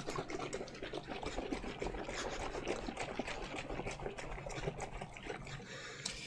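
Apple juice and honey sloshing hard inside a gallon jug as it is shaken vigorously by hand, a steady rapid churning to mix the honey into the juice for cyser.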